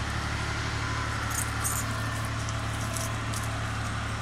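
Steady low machine hum, with a few brief light jingles about a second and a half in and again around three seconds in.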